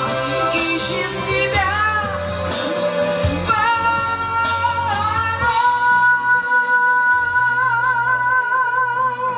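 A voice singing a song to an acoustic guitar. In the second half the singer holds one long note with vibrato over the strummed and plucked guitar.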